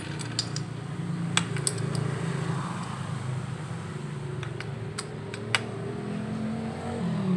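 A handful of sharp clicks and taps from small plastic and metal parts as the vape mod's circuit board is fitted back into its metal casing. Under them runs a steady low engine-like drone that dips and then rises in pitch near the end.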